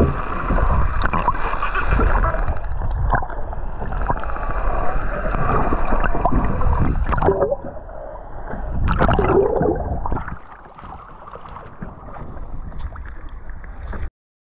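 Water churning and gurgling against a camera held underwater, a loud dense rushing noise that eases after about seven and a half seconds, swells again, drops lower after about ten seconds, and cuts off abruptly near the end.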